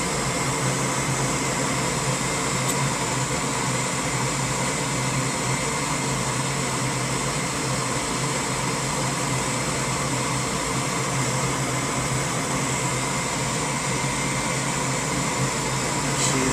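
Goodman gas furnace's draft inducer fan running steadily with a low hum on start-up, while the igniter heats up to light the burners.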